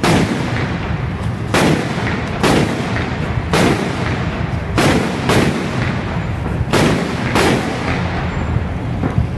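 Firecrackers exploding one after another: about eight loud bangs at uneven gaps of roughly a second, each with a short echoing tail, over a steady low rumble.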